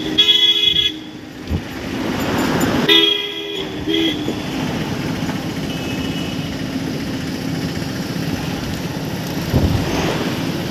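Road-vehicle horns honking: a blast of about a second at the start and another at about three seconds, with a short toot just after, over steady engine and road rumble from moving traffic.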